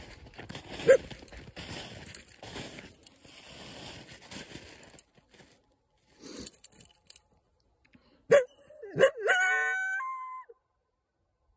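Coyote barking, once about a second in and twice more later, then giving a short howl about a second long that steps up in pitch at its end.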